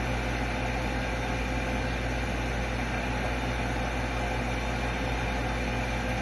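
Steady background hum with an even hiss and a thin constant tone, unchanging throughout, like a running appliance or fan in the room.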